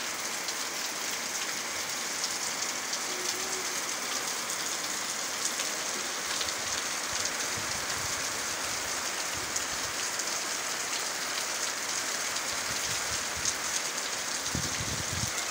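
Heavy rain falling steadily: a dense, even hiss with the fine ticking of individual drops striking hard surfaces close by, and a few brief low rumbles.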